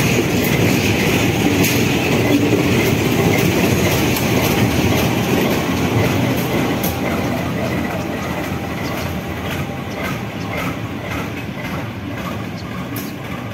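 A slow-moving train, a CC 201 diesel locomotive with a KRDI diesel multiple unit, rolling past close by: a steady rumble of wheels on rail with scattered clacks, growing gradually quieter over the second half as it moves on.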